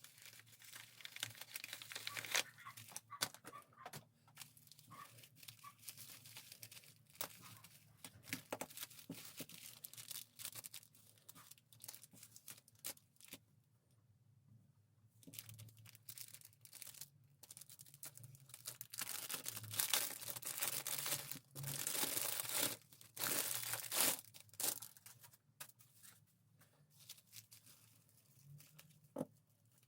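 Packaging being opened by hand: wrapping and tape tearing, and plastic or paper crinkling in irregular spells, loudest about two-thirds of the way through.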